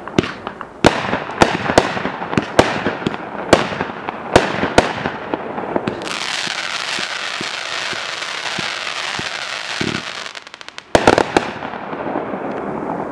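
Green Mountain Boys 500-gram repeater fireworks cake firing: a run of sharp shot reports and breaks for about the first five seconds, then a steady hissing sizzle of the burning effects. Near the end comes a quick rapid-fire volley of shots that trails off into hiss.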